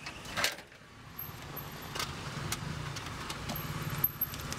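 A steady low motor hum sets in about a second in and runs on, with a few sharp clicks and knocks over it.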